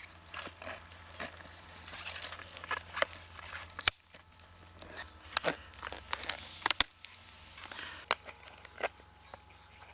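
Handling noises as a grass snake is freed from a flower pot: irregular sharp clicks and knocks over soft rustling and crackling.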